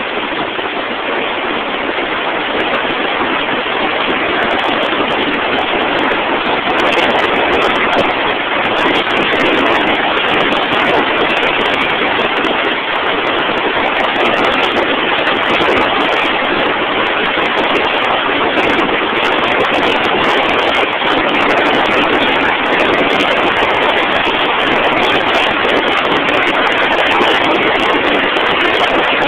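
Drill rig machinery running: a steady, loud rushing noise with no clear pitch that holds throughout.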